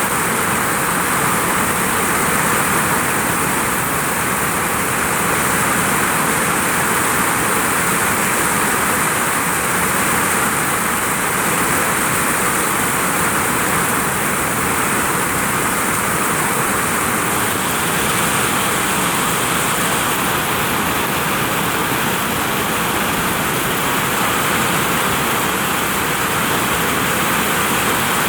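Heavy rain pouring steadily onto a vinyl roof, a dense unbroken hiss of falling water.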